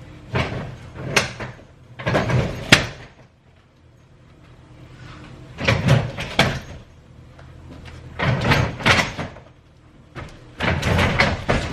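Knocking, bumping and scraping as a boxed washing machine on a hand truck is worked against a doorway that is too narrow for the box. The sound comes in five separate bursts, each under about a second, with quieter gaps between them.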